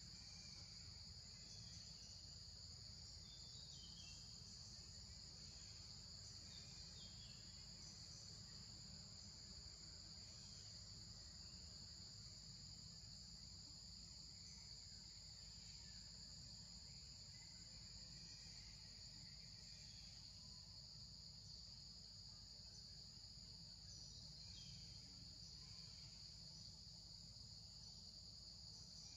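Faint, steady high-pitched drone of insects trilling, held on two constant tones, with a few short faint chirps now and then over a low steady rumble.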